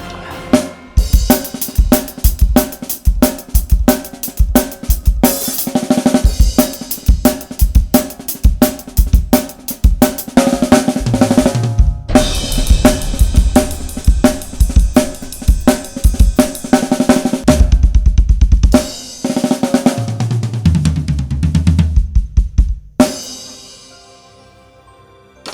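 Drum kit played hard over a backing track: a Pacific Drums 805 series kit with a Mapex snare and Sabian cymbals, with kick, snare, hi-hat and cymbal hits. There is a fast even run on the bass drum about 18 seconds in. The playing ends on a cymbal crash about 23 seconds in that rings out and fades.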